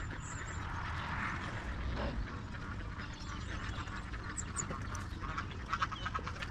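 Repeated short animal calls, with a quicker run of them about five to six seconds in, over a low steady rumble.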